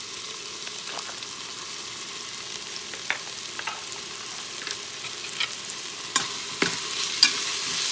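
Spiced onion-tomato masala sizzling in an Instant Pot on sauté mode, with a spoon stirring and clicking against the pot. The steady sizzle runs under scattered spoon taps, which come faster and louder near the end.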